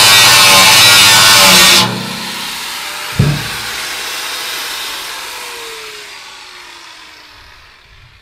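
Angle grinder's disc cutting a slot in the steel wall of a 55-gallon drum, loud and even, until it leaves the cut suddenly about two seconds in. One sharp thump follows, and the grinder's motor winds down with a slowly falling whine that fades over several seconds.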